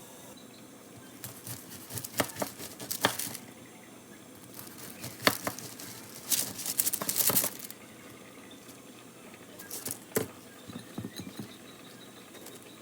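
Handling noises: several bursts of crinkling, crackling and clicking, with short pauses between them.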